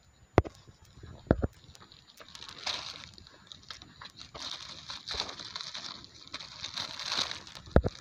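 Clear plastic bag crinkling and rustling as a hand handles it and the litter going into it, with a few sharp taps of handling near the start and end.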